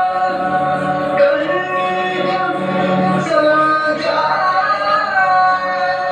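Indian classical vocal music with accompaniment: singing in long, held notes that glide between pitches.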